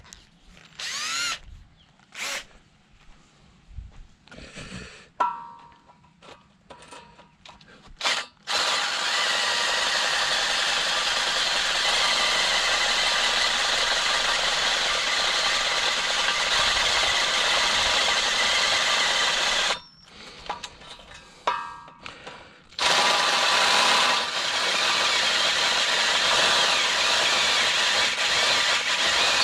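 Power drill boring holes with a 5/8-inch bit: several short trigger pulls with the motor spinning up, then long stretches of steady drilling, broken by a pause of about three seconds just past the middle.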